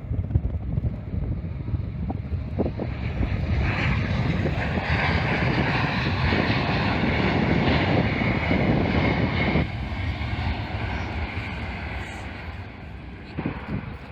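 Jet airliner flying past: engine noise with a steady high whine builds about four seconds in, holds, then drops away abruptly near ten seconds.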